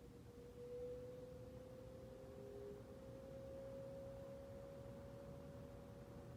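Manning Bowman 12-inch box fan running on low speed, very quiet: a faint motor hum with a thin steady tone that creeps slightly upward in pitch as the fan comes up to speed.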